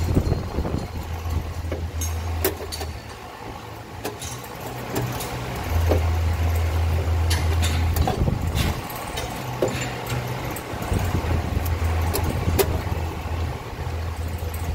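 Scattered clicks and light knocks of cables and connector fittings being handled at an inverter's wiring end, over a low rumble that cuts out and comes back several times.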